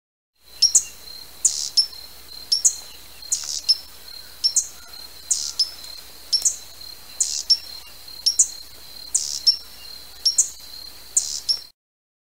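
Hummingbird giving high, sharp chip calls, often in quick pairs, repeated about once a second over a steady high tone.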